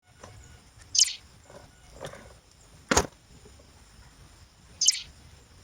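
Sharp clicks and small taps from MC4 solar connector parts being handled and fitted together. There are three crisp clicks, about a second in, near the middle and near the end, with softer taps between them.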